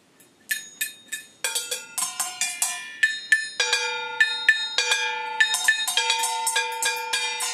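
Upturned stainless steel mixing bowls tapped with sticks, irregular strikes starting about half a second in and coming thicker from about a second and a half. Each tap leaves a clear bell-like ring, and the bowls of different sizes ring at different pitches that overlap.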